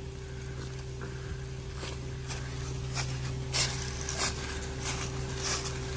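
A truck engine idling steadily, with scattered light clicks and crunches over it.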